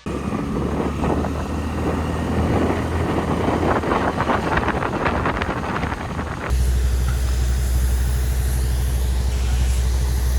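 A rumble with a burst of clattering knocks, then, after a sudden change about six and a half seconds in, a louder, steady low rumble with hiss.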